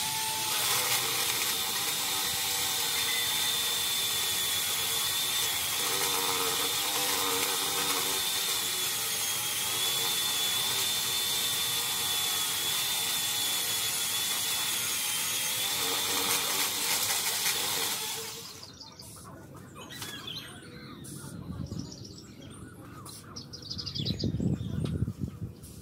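Worx WG368E 40V cordless chainsaw running steadily with a high electric whine for about eighteen seconds, then winding down and stopping. Scattered clicks and knocks follow.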